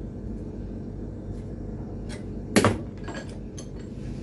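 Short metal clinks of a stainless steel spoon and an adjustable spanner being handled on a workbench as the spoon's neck is bent straight, with one loud knock about two and a half seconds in. A steady low hum runs underneath.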